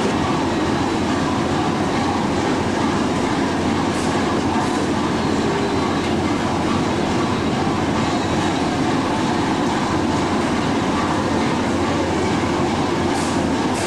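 Fishing boat's engine running, a steady drone that fills the hold, with a few light clicks about four seconds in and near the end.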